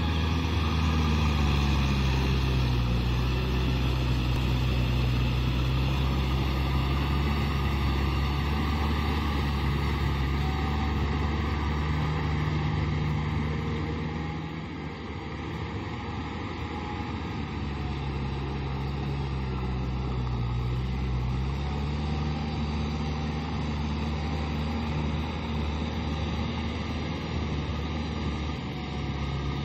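Kubota M6040 SU tractor's diesel engine running steadily under load while cultivating wet paddy mud. Its pitch dips and recovers several times, and it gets somewhat quieter about halfway through as the tractor moves off across the field.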